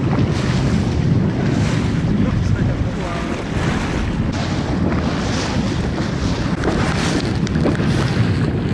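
Wind buffeting the microphone over choppy sea, with water lapping and splashing.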